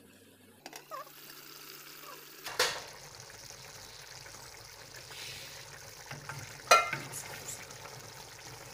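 Mrouzia lamb stew sizzling in an aluminium pot as its thick sauce cooks down, with a knock about two and a half seconds in and a loud ringing metallic clank near seven seconds, as the pot is handled and stirred.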